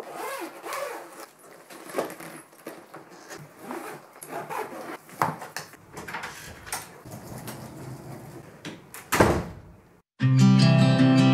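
Scattered knocks and clicks as a hard-shell carry-on suitcase is closed and wheeled across a wooden floor, then a door is shut with one loud knock about nine seconds in. Strummed acoustic guitar music starts near the end.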